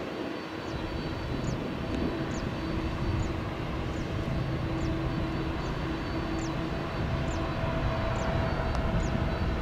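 Airbus A330-300 jet engines at takeoff thrust as the airliner climbs out, a steady rumbling jet roar with faint droning tones in it.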